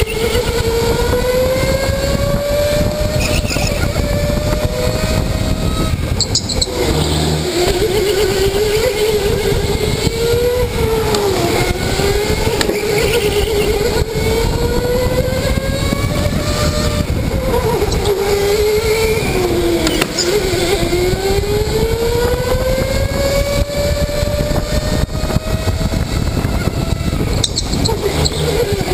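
Electric rental go-kart motor whining from the driver's seat, its pitch climbing on the straights and dipping through the corners every few seconds, over a loud rough rumble from the kart.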